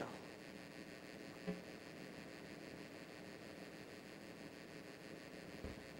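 Quiet room tone: a steady faint hiss and hum, broken by one brief faint sound about a second and a half in.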